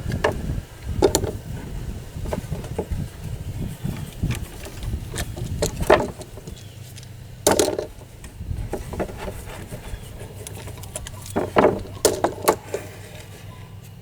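Clamps being undone and taken off a glued wooden frame piece: a string of irregular knocks and clicks of metal clamp parts and wood, the loudest about halfway through and a quick cluster near the end.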